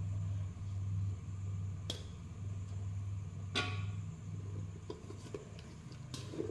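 A metal spatula knocks and scrapes once against a wok of curry about three and a half seconds in, after a fainter click about two seconds in, over a steady low hum.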